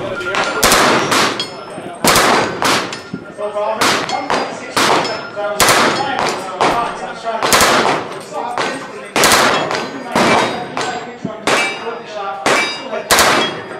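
Repeated gunshots at a shooting range, about one a second and unevenly spaced, several followed by a metallic ring from struck steel targets. Voices can be heard faintly between shots.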